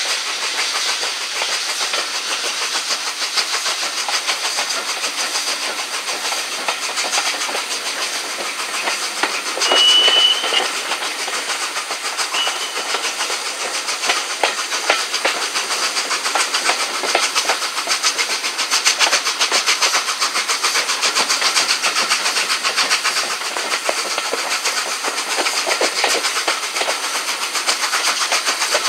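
Steam train on the move, heard from an open carriage window behind LNER A3 Pacific 60103 Flying Scotsman: a steady rush of running and wind noise with a rapid, regular beat of exhaust and wheels over the rails. A brief high squeal about ten seconds in, and a shorter one a couple of seconds later.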